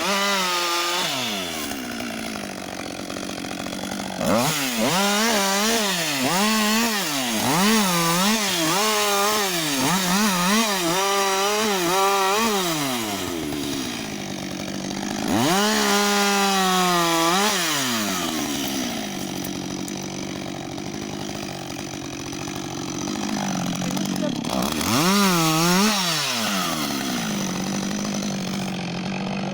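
Husqvarna 562 XP two-stroke chainsaw running, its throttle blipped up and down in quick repeated revs, then held high for a few seconds, then dropping back to a steady idle with one more rev near the end.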